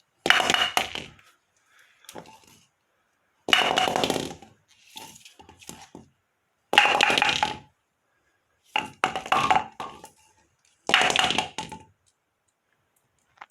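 AMF Amflite II bowling pins being knocked down and clattering, five times at intervals of about two to three seconds, each crash a burst of wooden knocks with a short ring.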